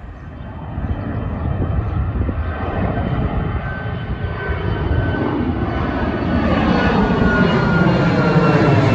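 Boeing 737 MAX 8-200's CFM LEAP-1B jet engines at climb power as the airliner climbs out after takeoff and passes overhead, a steady roar growing louder. A thin whining tone in the roar drifts slightly down in pitch in the second half.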